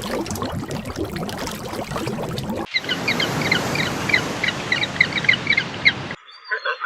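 Birds calling in two spliced clips: first a dense jumble of calls, then, after a sudden cut, quick short chirps repeated about four times a second over a steady hiss.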